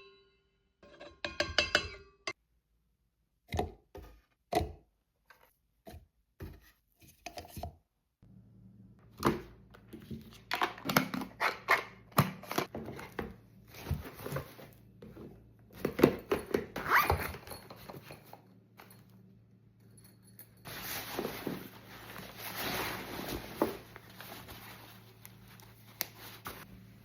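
Kitchen food-preparation sounds: a series of sharp knocks and clicks, then scraping and rustling over a steady low hum that starts about eight seconds in, and a longer hiss later on.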